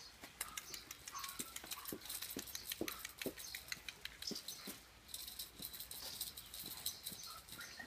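Quick, light clicking and pattering of a Yorkshire terrier's claws on paving stones, mixed with a person's soft steps.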